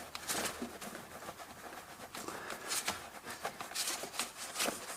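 Faint handling noise: a few short clicks and rustles scattered over a few seconds.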